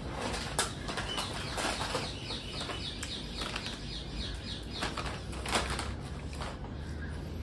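Potato-chip packets rustling and crinkling, with a few sharper crackles. In the middle comes a quick run of short falling chirps, about five a second.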